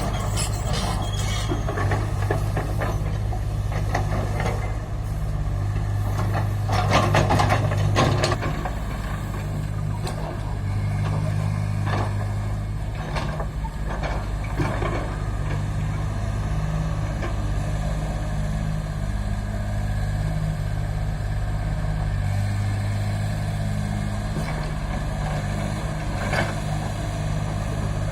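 Excavator diesel engine running steadily under work, with scattered clanks and scraping noises, the loudest cluster about seven seconds in.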